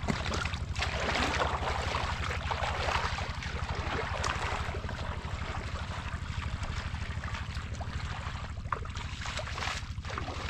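Shallow muddy water sloshing and splashing as a person wades and gropes through it by hand, over a steady low drone.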